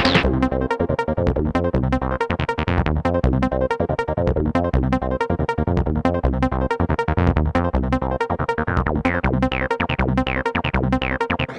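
Electronic dance music with a fast, steady beat and synthesizer notes.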